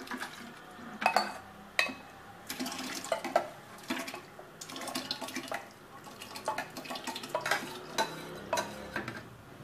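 A metal spoon scraping and knocking inside a stainless-steel mixer-grinder jar as wet ground grape pulp is emptied out, giving irregular clinks and scrapes throughout.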